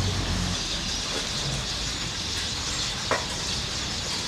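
Outdoor street ambience: a low vehicle engine hum that fades out in the first half second, then a steady hiss, with one sharp click about three seconds in.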